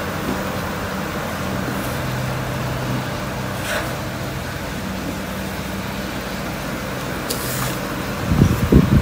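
Steady mechanical hum with a constant low drone under an even hiss. A few soft low thumps come near the end.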